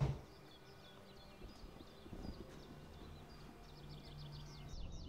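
Outdoor ambience with a small bird singing a run of quick, falling chirps, strongest near the end. A single sharp knock comes right at the start.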